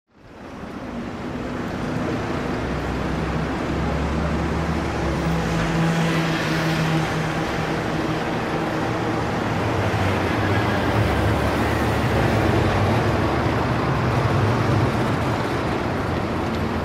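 A steady traffic-like noise fading in over about two seconds, with low held tones underneath that change pitch a couple of times.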